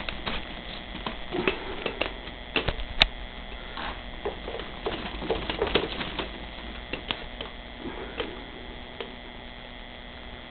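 Irregular light clicks and taps from a handheld camera being moved about, over a faint steady hum; the sharpest click comes about three seconds in.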